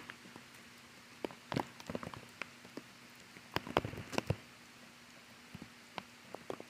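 Bare feet stepping on wet, gritty sandy dirt in light rain: irregular soft crunches and sharp taps over a faint hiss, bunched in two clusters, about a second and a half and about four seconds in.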